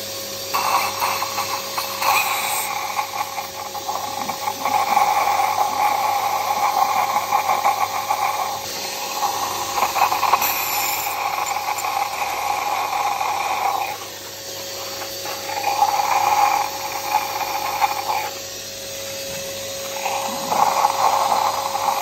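Vacuum cleaner running with a narrow tube attachment, sucking water out of a spark plug well. A steady motor whine runs under a rushing, slurping airflow that swells and fades as the tube moves in the port. The airflow drops away briefly about two-thirds in and again near the end.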